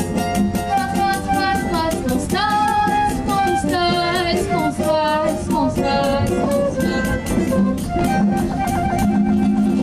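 Samba played live by a small acoustic group: clarinet, strummed guitars and a pandeiro keeping a quick, steady beat, with a woman singing the melody.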